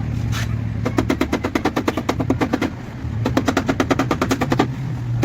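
Rapid tapping on a car body panel during paintless dent repair, in three runs of about ten sharp taps a second, the last one short, over a steady low hum.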